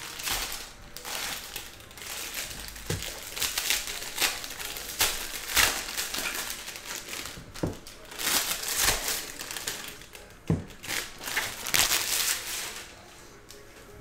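Foil wrappers of Bowman Draft Super Jumbo baseball card packs crinkling and rustling as the packs are handled and opened by hand, in a run of crackly rustles that stops near the end.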